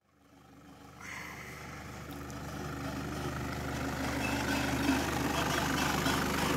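Engine of a Nissan double-cab pickup running at low revs as the truck drives slowly over a rutted dirt track and passes close by. The sound fades in over the first second, then grows steadily louder as the truck nears.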